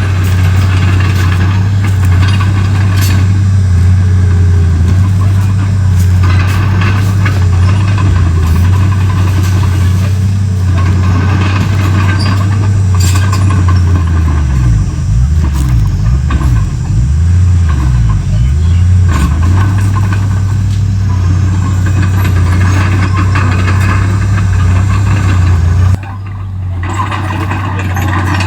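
Komatsu D31P bulldozer's diesel engine running under load, a steady low drone with occasional knocks. Midway its speed rises and falls for several seconds, and near the end the sound drops suddenly and builds back up.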